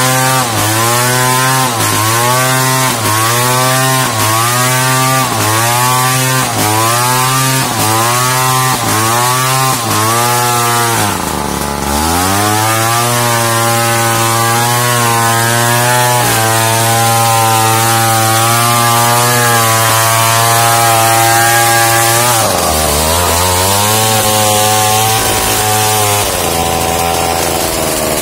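Two-stroke chainsaw at full throttle, ripping a plank lengthwise off a squared timber. For the first ten seconds or so the engine pitch sags and picks up again about once a second. It then runs steadier under load, with brief dips near the middle and again later.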